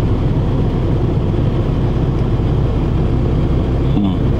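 Semi-truck diesel engine idling, a steady low rumble heard from inside the cab.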